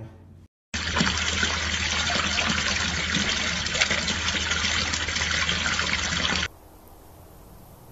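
Water pouring and splashing steadily over the spillway of a small garden water feature, starting under a second in and cutting off abruptly about six and a half seconds in.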